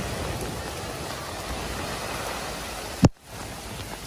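Water splashing and rushing as a car drives through a flooded ford, pushing a bow wave. About three seconds in comes a sharp click, followed by a brief drop in level.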